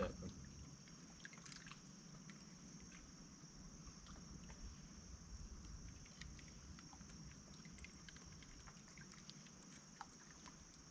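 Near silence: a faint, steady insect chorus trilling high in the background, with a few light ticks.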